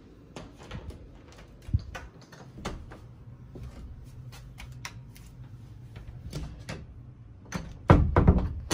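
Footsteps and small knocks of someone walking. Near the end a door is opened by its brass knob, a short cluster of clicks and knocks that is the loudest sound.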